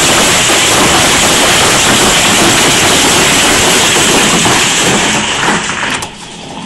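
Heavy hail pelting down in a dense, loud, steady roar of countless impacts. The din drops sharply about six seconds in.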